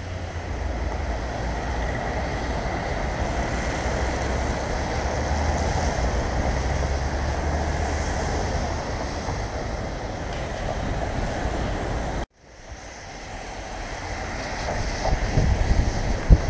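Steady road traffic noise from cars passing on the road below, with wind rumbling on the microphone. The sound drops out abruptly about twelve seconds in, then comes back with gusts of wind on the microphone.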